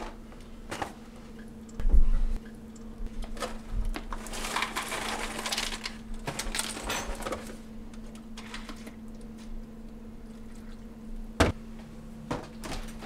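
Breakfast being made at a kitchen counter: a plastic bowl and containers set down with a few knocks, the loudest about two seconds in, then a few seconds of pouring into the plastic bowl. A faint steady hum runs underneath.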